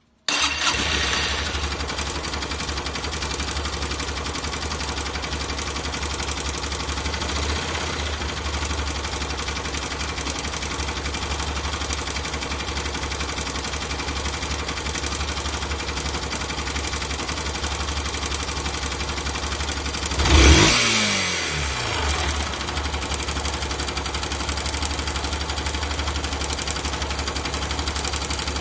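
Yamaha YBR125's single-cylinder four-stroke engine idling steadily with a rattle, blipped once about twenty seconds in and settling back to idle.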